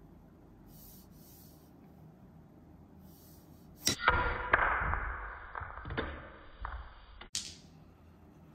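Break shot on a mini tabletop pool table: a cue tip clicks on the cue ball, which crashes into the racked balls about four seconds in. Several clacks of balls striking each other and the cushions follow over a low rumble of balls rolling on a thin cloth laid over the plastic bed, dying away over about three seconds. A short sharp click near the end.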